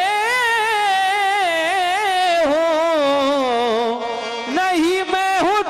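Qawwali singer holding a long, wordless melismatic line, its pitch wavering and sliding up and down. A little past halfway the voice sinks lower and thins out briefly, then comes back with quick rises and falls.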